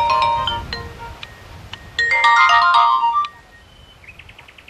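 Mobile phone ringtone: a short electronic melody played twice, the second phrase about two seconds in, then a faint quick rattle of small ticks near the end.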